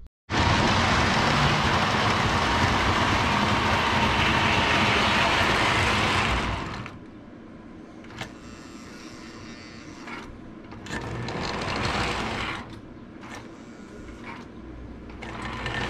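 Lionel 671 Turbine O-gauge model steam locomotive running on three-rail track, a steady motor-and-wheel rush. It is loud for about six seconds, then quieter, swelling twice as the train moves along the layout.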